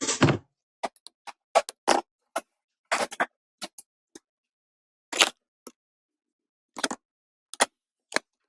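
A string of short, sharp clicks and taps at uneven intervals, about fifteen in all, with silence between them.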